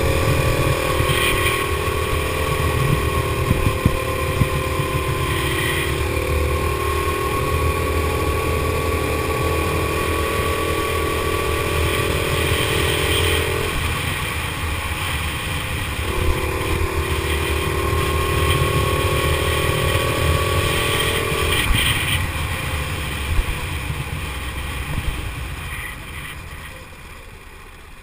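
Go-kart engine running at speed, heard from on board the kart, with a steady buzzing note. About halfway through the note drops out briefly as the throttle eases, then picks up again, and near the end it winds down as the kart slows.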